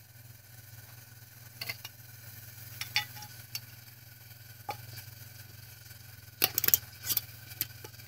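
Metal canning-jar lid being set and fitted onto a glass mason jar: a few faint taps, then a cluster of sharp metallic clicks about six and a half seconds in. A low steady hum runs underneath.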